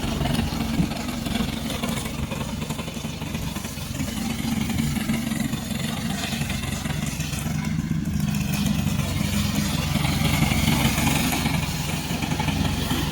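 Remote-controlled lawn mower's engine running steadily under load.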